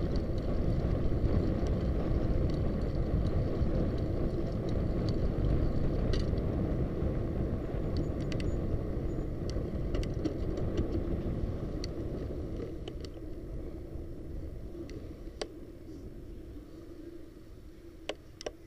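Wind rushing over an action camera's microphone and tyre rumble from a bicycle riding on a paved street. The rumble dies down gradually through the second half. A few light clicks and ticks are scattered through it, the sharpest near the end.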